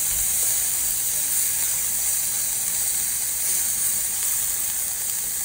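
Strips of pork belly sizzling on a hot grill grate: a steady, high hiss of fat frying.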